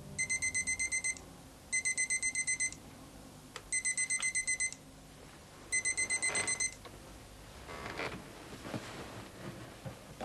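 Digital alarm clock beeping: four bursts of rapid, high-pitched beeps, each about a second long and roughly two seconds apart, then it stops, followed by soft rustling.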